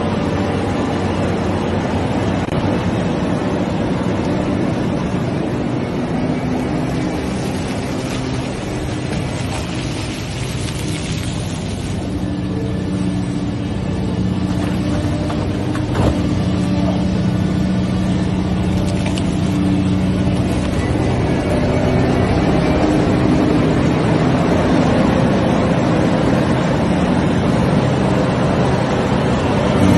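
Large hydraulic excavator's diesel engine running steadily under working load, with one sharp knock about halfway through.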